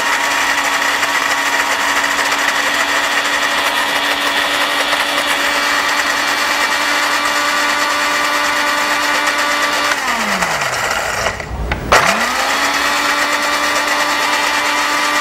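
Electric blender running at speed, blending tamarind pulp with sugar and spices into chutney, a steady motor whine. About ten seconds in it is switched off and winds down. After a knock it starts again about two seconds later, rising back to speed and running steadily.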